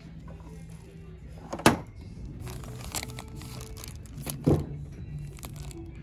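Store merchandise being handled: two sharp knocks, about a second and a half in and again past four seconds, with plastic packaging crinkling between them. Music plays faintly in the background.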